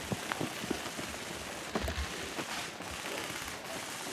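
Footsteps of someone running across grass, with a steady hiss of wind and movement noise on the microphone and a few faint, sharp clicks and thumps.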